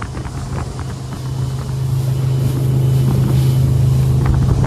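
Speedboat engine running under way with a steady low drone that gets louder from about a second in, with wind rushing over the microphone.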